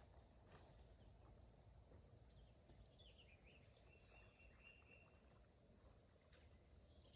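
Near silence: a faint, steady, high-pitched insect drone, with a faint gliding chirp from a bird or insect about three to five seconds in.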